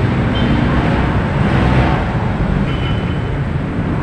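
Steady roadside city traffic noise from vehicles passing on a busy avenue, with two faint, brief high tones, one about half a second in and one near three seconds.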